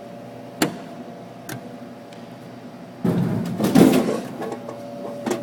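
Pop vending machine dispensing a drink: a click, then about a second of loud rumbling clatter as the drink drops into the delivery bin. A steady faint hum runs underneath.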